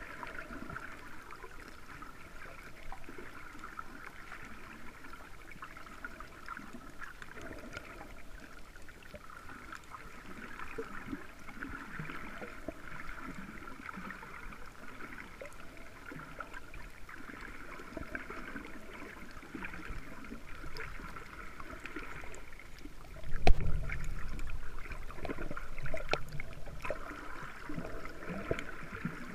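Underwater ambience picked up by a camera below the surface: a steady crackling hiss. About 23 seconds in, a sharp loud knock is followed by a few seconds of low rumble.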